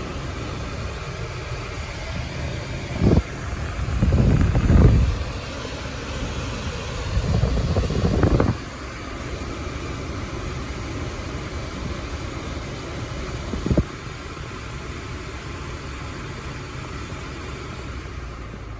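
Volvo XC90 air conditioning running on high: a steady hissing rush of air from the blower, the hissing noise the owner complains of. A few low thumps and rumbles break through about three, five and eight seconds in, and once more near fourteen seconds.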